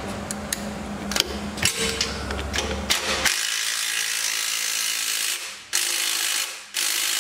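Clicking and rattling from a worn outer tie rod end, its loose ball stud knocking as it is wiggled by hand. The play is a sign the joint is worn out and needs replacing. After about three seconds the clicks give way to a steady hiss.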